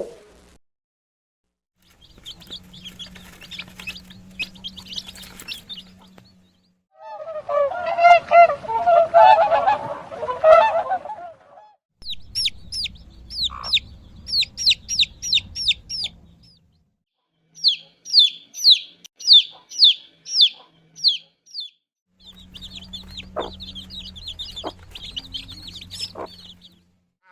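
Short clips of farm poultry cut together: rapid, high falling peeps of chicks, about three a second, and in the middle a few seconds of lower, harsher calls from adult fowl.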